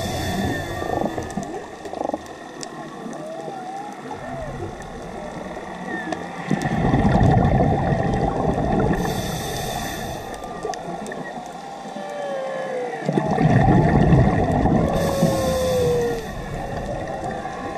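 A scuba diver breathing through a regulator, heard underwater. Loud rushes of exhaled bubbles come about every six to seven seconds, each followed by a short hiss of inhalation. Faint squeaky chirps and glides come in between.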